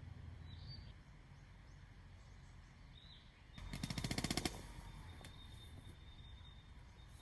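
A rapid rattle of sharp clicks, about a second long and growing louder, a little past halfway. Two faint high chirps come before it.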